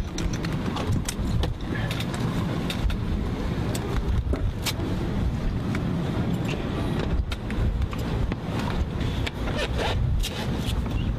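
Steady low rumble of flight-line background noise, with light clicks, clinks and rattles of a helicopter crewman's flight helmet and vest gear as he puts them on and adjusts them.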